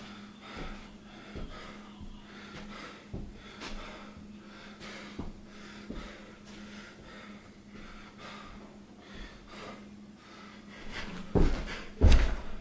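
A person breathing heavily, with a breath about every second; the uploader puts the heavy breathing down to being sick. Near the end, loud thumps begin.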